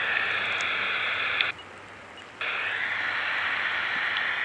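Steady hiss from a handheld digital voice recorder's small speaker as it plays back the silent gap after a recorded question in an EVP session. The hiss cuts out for under a second about a second and a half in, then returns.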